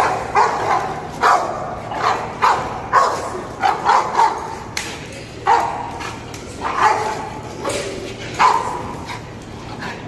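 Presa Canario barking in a rapid, irregular series of more than a dozen sharp barks as it lunges on the leash at a decoy waving a rag, the aggressive barking of protection training.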